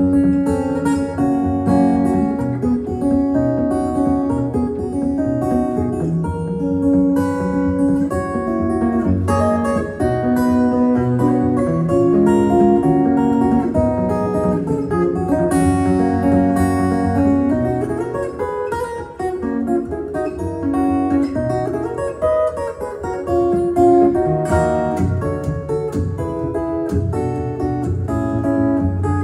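Acoustic guitar played fingerstyle as a solo instrumental, a continuous run of plucked notes with melody over bass, with some sharp percussive strokes.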